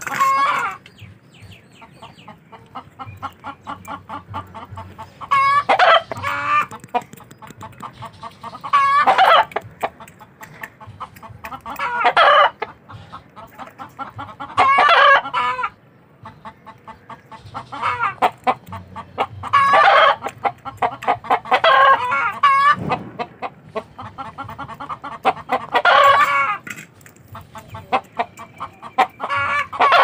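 A flock of chickens clucking in quick short notes, broken every three to four seconds by a loud, drawn-out call about a second long.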